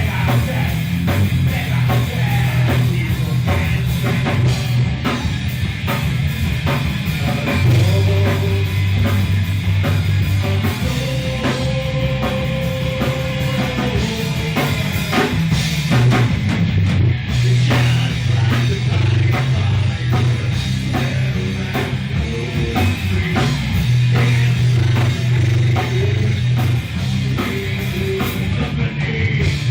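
Heavy rock music with a driving drum-kit beat and a steady low bass line.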